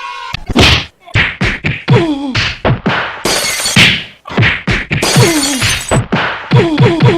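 A fast string of comedic hit sound effects: sharp whacks and thuds, many followed by a short falling tone, with two longer crashing bursts in the middle.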